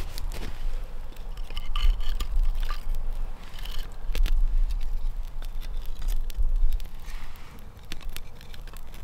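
A small kindling fire of slightly damp wood crackling with scattered sharp pops, while split sticks are laid on it with brief wooden scrapes and knocks, over a low rumble.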